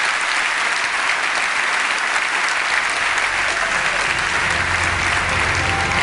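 Large audience applauding steadily, a dense wash of many hands clapping. A low sound swells up under the clapping from about halfway through.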